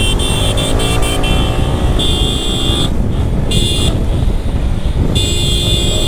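Motorcycle engine running while riding, with heavy wind rush on the microphone. The engine note rises in the first second, and a high-pitched whine cuts in and out several times.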